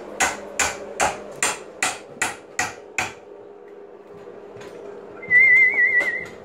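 Sharp knocks at a steady pace of about two a second, stopping about three seconds in. Near the end comes a short, wavering, high whistle-like tone.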